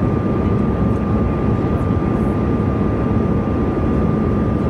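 Passenger jet cabin noise during descent: the steady, even rush of jet engines and airflow heard from inside the cabin, with a thin steady high tone running through it.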